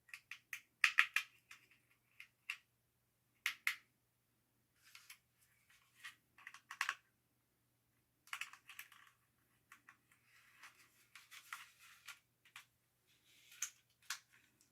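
A small screwdriver working at the tight screws of a hard plastic toy's battery cover: irregular light clicks and scrapes of metal on plastic, in short clusters, with the toy being handled.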